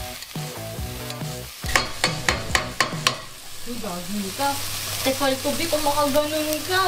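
Metal ladle stirring chicken feet frying in a nonstick Tefal pot, with a quick run of sharp clacks as it knocks and scrapes against the pot, hard enough to draw a complaint that the pot should not be hit like that.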